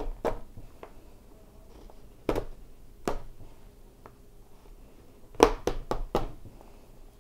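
Chef's knife chopping a bar of dark chocolate on a cutting board: a few separate sharp chops, then a quick run of four chops near the end.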